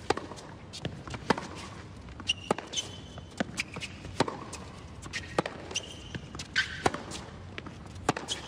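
Tennis rally on a hard court: sharp pops of rackets striking the ball and the ball bouncing, at irregular spacing, with short high squeaks of shoes on the court surface in between.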